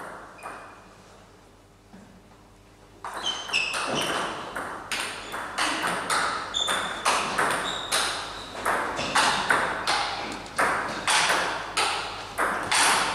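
Table tennis rally: the ball clicks off the bats and the table about three times a second. The rally starts about three seconds in, after a quiet pause.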